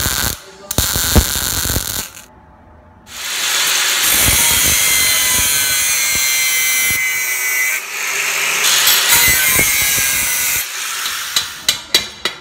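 Stick arc welder crackling and popping for about two seconds. After a short pause an angle grinder with a cut-off disc cuts through a steel bar for about seven seconds, a steady loud hiss with a high whine. It ends in a quick series of sharp metal clinks as steel pieces are handled.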